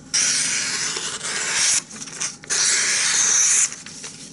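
Bark River Bushcrafter knife edge slicing through paper in two long hissing strokes, a short gap between them: a paper-cutting test of the freshly waterstone-sharpened edge.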